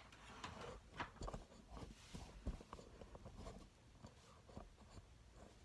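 Near silence with faint scattered clicks and light knocks of handling.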